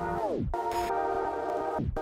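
Electronic background music: held synthesizer chords, with a falling pitch sweep about half a second in and another near the end.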